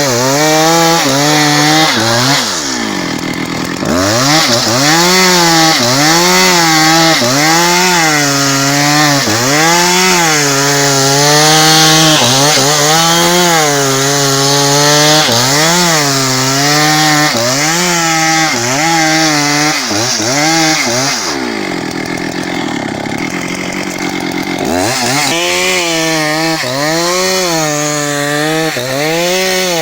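Husqvarna 272XP two-stroke chainsaw with a 30-inch bar ripping a log lengthwise. Its engine pitch rises and falls every second or two as the chain loads up in the cut and recovers. The engine drops off twice, about three seconds in and again for a few seconds past twenty seconds, then revs back up.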